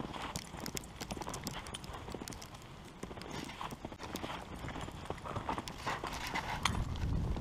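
Footsteps crunching through fresh snow in a walking rhythm, with a low rumble growing louder near the end.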